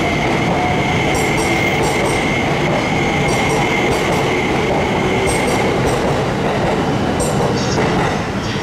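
JR East E261 series 'Saphir Odoriko' electric express train pulling out and running past close by, with a steady running rumble and a high, steady whine that fades after about six seconds. Pairs of clicks come from the wheels about every one and a half to two seconds as each car goes by.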